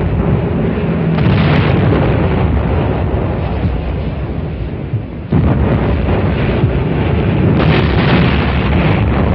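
Artillery shell bursts and explosions in close succession, making a continuous heavy rumble, with a fresh loud blast about five seconds in.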